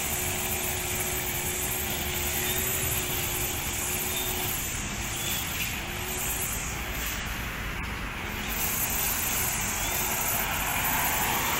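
Gasoline grass trimmer's small engine running at a steady pitch that wavers a little, mixed with the hum of passing road traffic. The overall sound dips briefly about eight seconds in, then comes back up.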